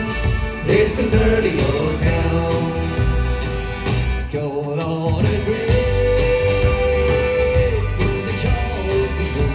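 Live folk band playing: a sung lead vocal over button accordion, guitar, bass and drums keeping a steady beat. Near the middle the bass and drums drop out for about a second, then come back in under a long held note.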